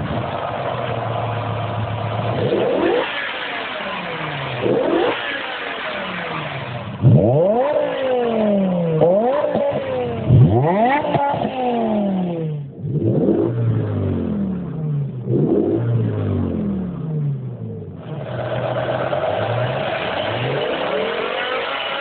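BMW engine and exhaust idling, then blipped through a series of quick revs, each one rising sharply and falling back. It settles to a steady idle near the end.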